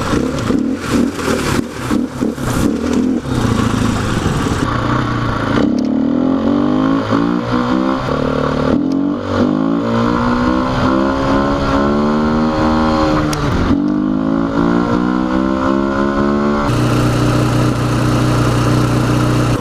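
Single-cylinder dual-sport motorcycle engine under way, its pitch rising and falling repeatedly as it accelerates and shifts. Rapid knocks and clatter sound over the first few seconds, and the engine settles to a steady note near the end.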